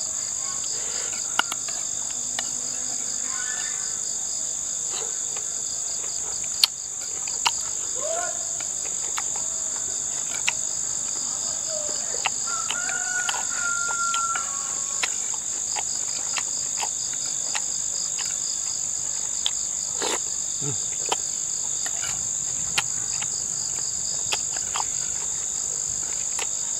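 A steady, high-pitched chorus of insects chirring in the undergrowth, with scattered light clicks of a metal spoon against a glass bowl and a few brief bird calls.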